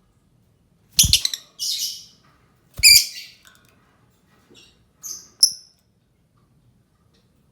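Lovebird calling: shrill chirps and a harsh screech in short bursts, loudest about a second in and again near three seconds, then two short high chirps a little after five seconds.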